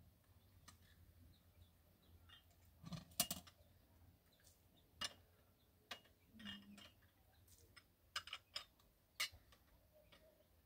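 Scattered light clicks and knocks a second or two apart over a quiet background; a quick cluster of knocks about three seconds in is the loudest.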